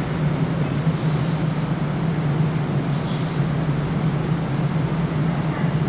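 DART Kinki Sharyo electric light rail train moving slowly into the station: a steady low hum over even running noise, with two brief high hisses, about a second in and about three seconds in.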